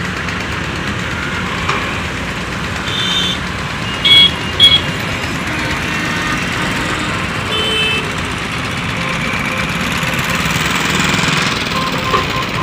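Heavy diesel engine of a Kobelco SK210 excavator running steadily, with two short loud horn toots about four seconds in and fainter short beeps around three and eight seconds in.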